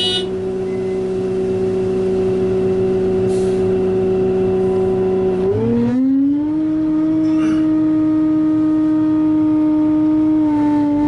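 Excavator's engine and hydraulics running with a steady droning whine. About halfway through, the pitch drops and then settles slightly higher. There is a short click at the start.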